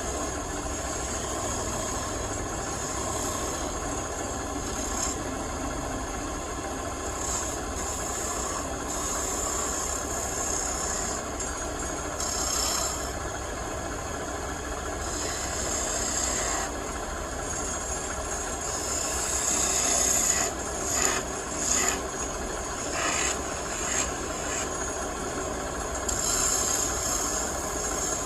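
Wood lathe motor running steadily while a tool works against the spinning wood, giving a rasping hiss that comes and goes. It is loudest in several short surges about twenty seconds in.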